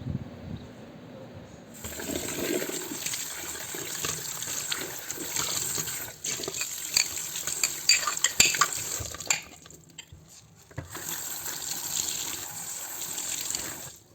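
Water running from a tap into a sink, with a few sharp clinks. The flow starts about two seconds in, stops for about a second in the middle, then runs again.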